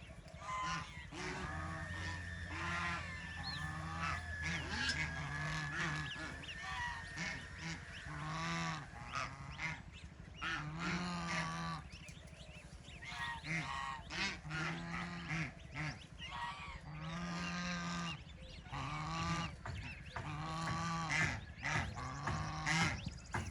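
Ducks quacking over and over, a long run of loud, nasal, honk-like calls about every second or two.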